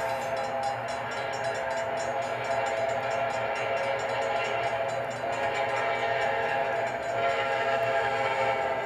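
Amtrak locomotive air horn held as one long, steady chord of several notes.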